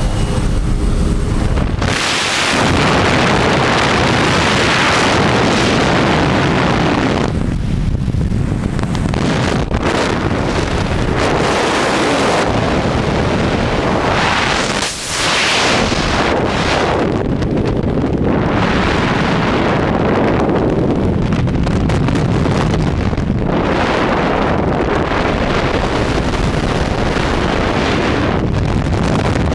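Heavy wind noise blasting across the camera microphone in skydiving freefall. It surges and eases every few seconds and drops out briefly about halfway.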